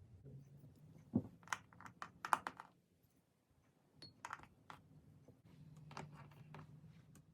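Hard plastic marble-run pieces clicking and clattering in a few short rattling bursts.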